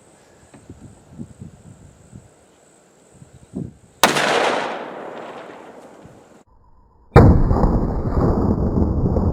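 A single shot from a .357 Magnum revolver (Taurus M66) firing a 125-grain hollow point about four seconds in, sharp, with its echo dying away over about two seconds. After a sudden break, a loud, steady rushing noise, like wind on the microphone, takes over near the end.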